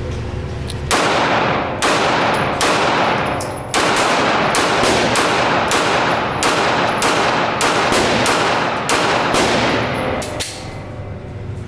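Gunshots at a gun range: a rapid string of shots, roughly two a second, each echoing, starting about a second in and stopping shortly before the end. A steady low hum lies underneath.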